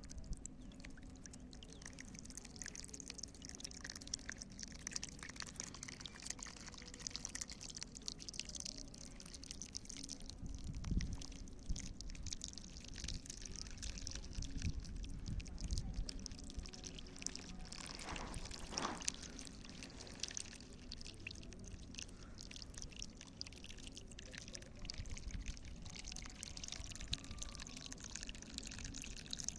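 Faint, steady sound of water pouring and trickling, with small splashes and drips through it.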